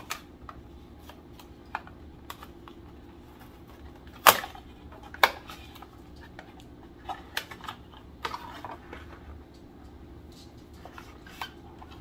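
Cardboard box and plastic packaging being handled and pulled apart: scattered clicks, taps and rustles, with two sharp snaps about four and five seconds in.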